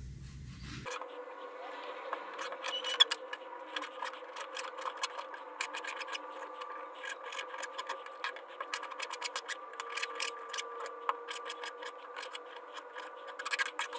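Quiet kitchen handling sounds: many small clicks and taps with some scraping over a steady hum. The sharpest click comes about three seconds in.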